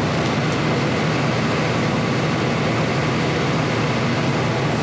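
Large temporary power generator running, a steady loud engine drone with a dense low hum. It is heard from behind Echo Barrier temporary acoustic panels, which are measured to cut it by about 10 dB, to roughly 70 dB at 10 feet.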